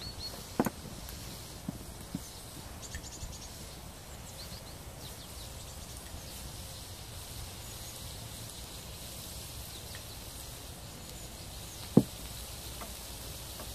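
Diced bacon sizzling in a pan over a fire: a steady, quiet crackling hiss. A light knock about a second in and one sharp knock near the end.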